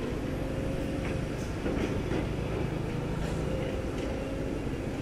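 Steady low rumble of a running engine, with a faint constant hum above it and a few light clicks.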